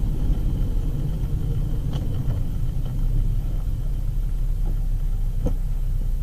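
Steady low rumble of a car's engine and tyres heard from inside the cabin, with a faint click about two seconds in and another near the end.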